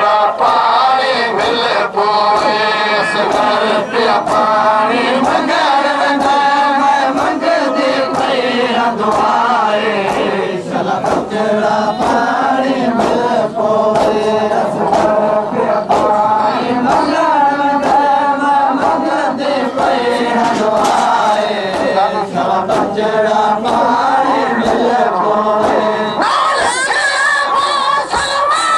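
A large crowd of men chanting a noha (mourning lament) in unison, with frequent sharp slaps of hands striking chests in matam. Near the end the chant grows louder and higher.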